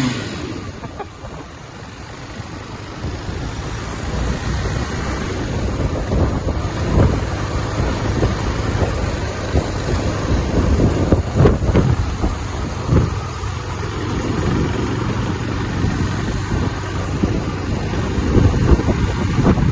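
Wind buffeting the microphone over the rumble and road noise of a moving vehicle. It grows louder over the first few seconds, with occasional thumps.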